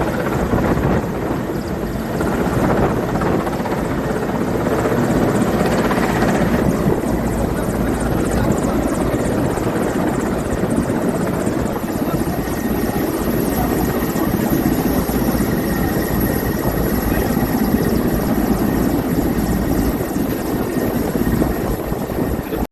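A JCB backhoe loader's diesel engine running as it crosses a fast-flowing flooded river, mixed with the steady rush of the water.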